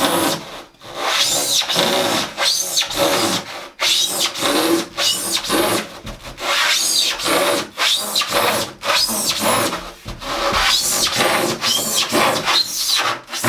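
Handsaw cutting through a wooden board in repeated back-and-forth strokes, with short gaps between the strokes.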